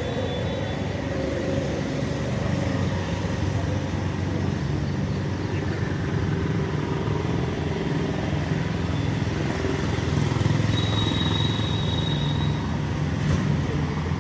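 Steady low rumble of passing vehicles, with a thin high whine for about two seconds near the end.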